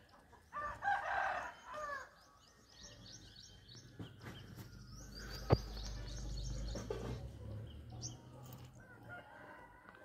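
An animal call with several falling-pitch notes about a second in, then small birds chirping over a faint low rumble, with a single sharp click midway.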